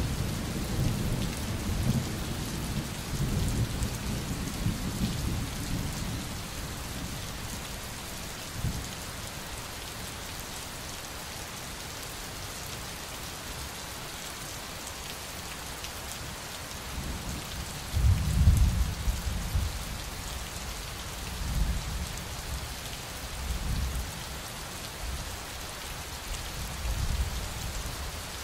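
Steady rain with rolling thunder: a rumble fading over the first few seconds, the loudest roll about two-thirds of the way in, and several fainter rolls near the end.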